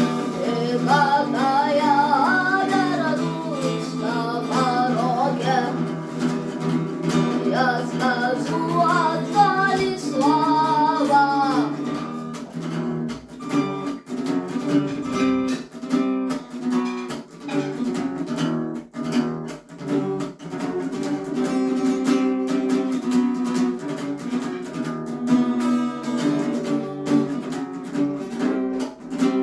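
A boy singing with acoustic guitar strumming; about twelve seconds in the voice stops and the guitar goes on strumming chords alone.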